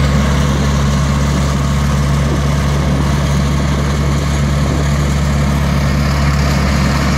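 Ride-on trencher's engine running steadily while its digging chain cuts a narrow trench for a fiber optic cable, with an even low hum and no change in speed.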